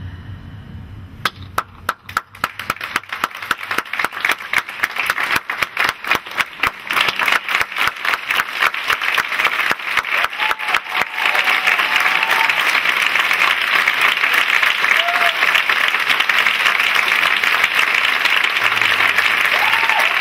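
Theatre audience applauding: a few scattered claps start about a second in, quickly thickening, and build into dense, steady applause by about halfway through.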